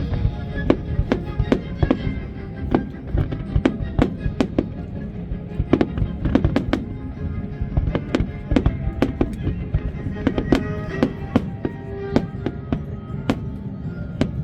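Fireworks display: aerial shells bursting in a rapid, irregular string of sharp bangs, several a second, over the show's music soundtrack.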